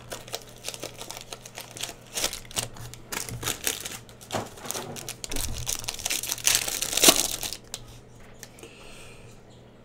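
Foil trading-card pack wrapper crinkling as hands open and crumple it: a run of sharp, irregular crackles, loudest about seven seconds in, then it stops.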